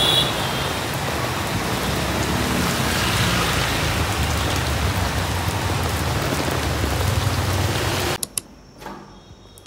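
Steady rain falling on a wet paved alley, with the low hum of motor scooters passing. The rain cuts off suddenly near the end, leaving only faint clicks.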